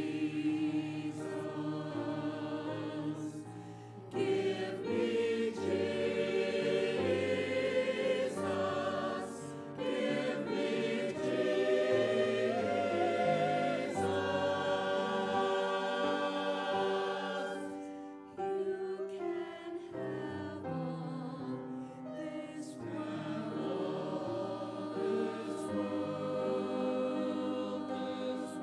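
Mixed church choir singing, in phrases broken by short pauses about 4, 10 and 18 seconds in.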